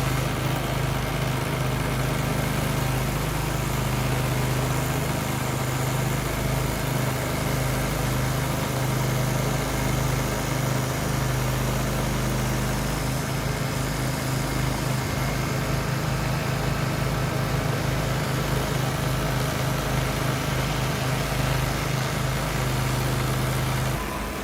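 Kohler Command Pro CH440 single-cylinder gasoline engine on a 14 HP stump grinder, running steadily with a strong low hum. Its level steps down slightly near the end.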